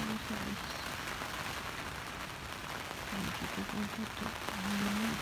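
Steady rain on the polycotton canvas of a Circus TC tent, heard from inside as an even hiss of drops.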